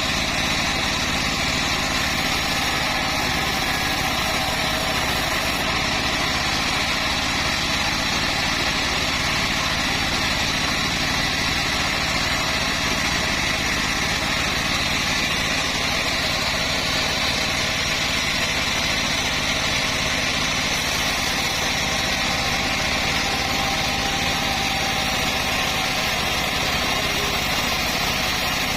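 Homemade bandsaw sawmill running steadily, a constant engine-like drone that holds level throughout.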